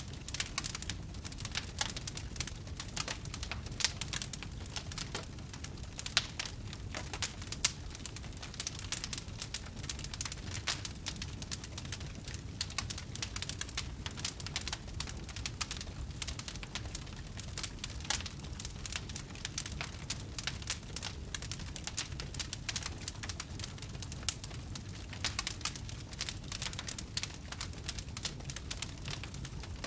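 Wood campfire crackling, with many irregular sharp pops and snaps over a steady low rumble of the burning fire.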